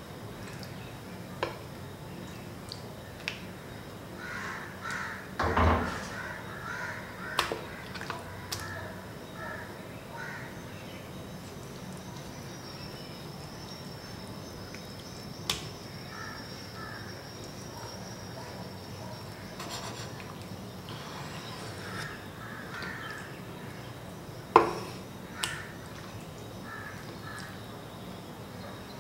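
Damascus chef's knife slicing raw chicken breast on a wooden cutting board: soft cutting sounds with a few sharp knocks on the board, the loudest about six seconds in and again near twenty-five seconds. Birds call in short runs in the background.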